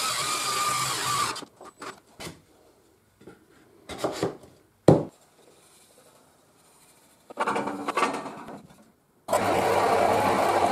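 A drill driver runs for about a second and a half with a whining motor, driving a brass threaded insert into a wooden block. A few light clicks and one sharp knock follow. Near the end a bandsaw switches on and runs steadily.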